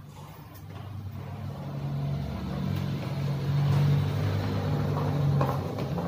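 A motor vehicle engine running steadily with a low hum, growing louder over the first few seconds and easing off slightly near the end.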